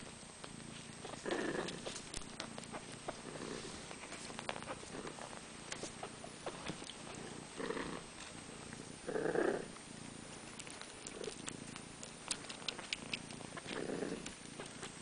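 Cats purring at close range while the kittens nurse: a steady purr that swells every few seconds, with small clicks and rustles throughout.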